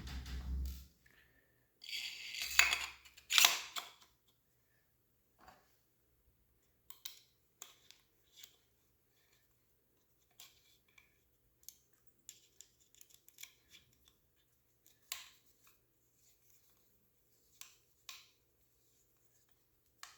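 Parts of a paintball marker being handled during disassembly: a short scraping rustle near the start, then scattered light clicks and taps.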